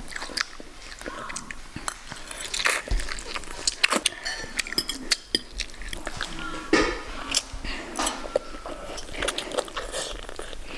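A person eating: biting and chewing, with many short sharp clicks like cutlery on a plate, and a few quiet words in between.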